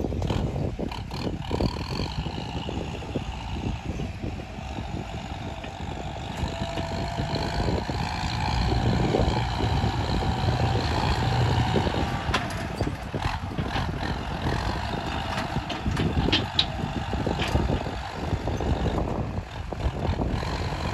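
Large hydraulic excavator's diesel engine working steadily, growing louder under load for several seconds near the middle, with a few sharp knocks and clatter of material while loading a haul truck.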